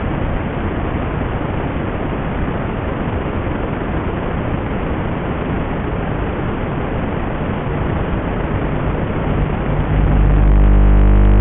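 Steady, even hiss of static from the audio channel of an analog FPV video receiver recording, with no motor tones in it. About ten seconds in, a louder steady low hum of several held tones comes in.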